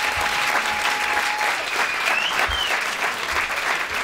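Audience applauding, many hands clapping at once in a steady, dense patter.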